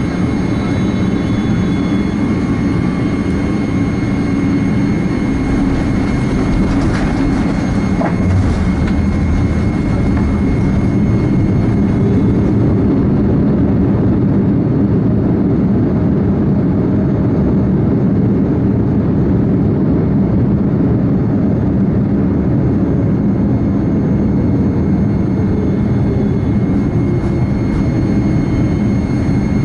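Cabin noise of a Boeing 787-8 rolling on the ground, heard beside the wing: the General Electric GEnx turbofans run at a low, steady setting under an even hum, with a thin high tone held throughout.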